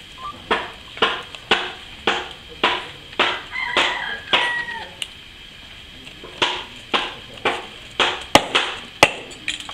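Small pointed tool scraping and gouging into the hard dry shell of a bottle gourd to cut a round hole, in repeated short strokes about two a second. The strokes pause for about a second and a half midway, and two sharp clicks come near the end.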